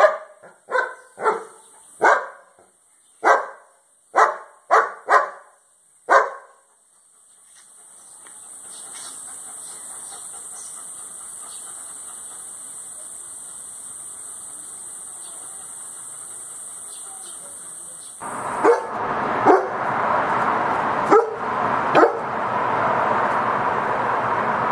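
German shepherd dogs barking. A quick run of about nine loud barks fills the first six seconds. After a quiet stretch there are four more barks over a steady background hiss near the end.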